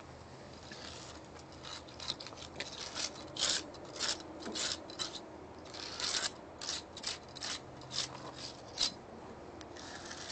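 Wire brush scraping inside an exterior panel joint in quick repeated strokes, roughly two a second, cleaning leftover paint and dirt out of the joint after the backer rod has been pulled.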